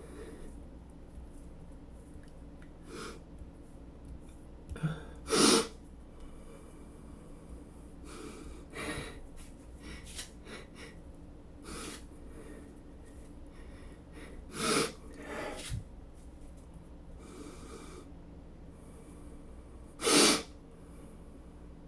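A man sneezing: three loud sneezes, about five, fifteen and twenty seconds in, with quieter breaths between them.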